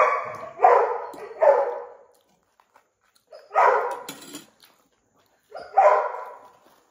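A pet dog barking, shut out of the room: three barks in quick succession, then a single bark after a pause, and another near the end.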